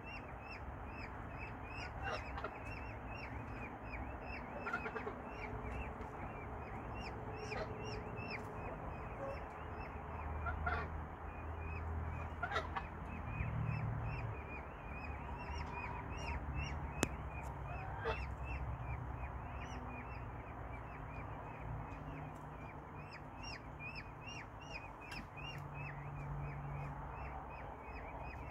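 Peachicks peeping over and over: a steady string of short, high, downward-sliding peeps, a few each second.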